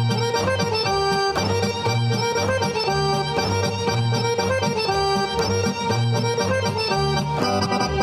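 Folk dance music led by an accordion, with a steady bass beat.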